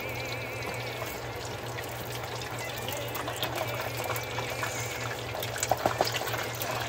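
Taquitos deep-frying in a pot of hot oil: a steady crackling sizzle, with sharper pops and clicks near the end.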